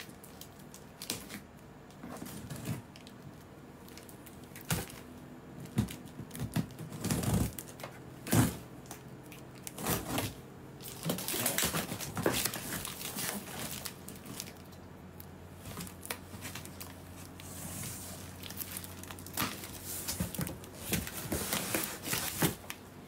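A large cardboard box being opened by hand: irregular tearing, scraping and crinkling of cardboard and packing material, with sharp knocks, busiest in the middle of the stretch.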